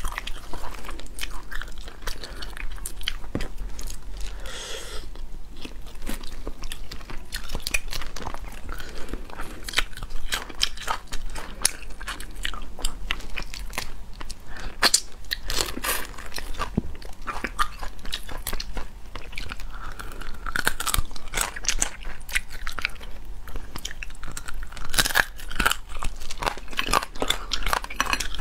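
Close-miked eating of cooked shellfish: shells cracked and peeled apart by hand, with wet chewing and a string of sharp crunches and snaps.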